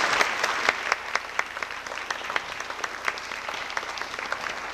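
A congregation applauding, the clapping gradually thinning out and getting quieter.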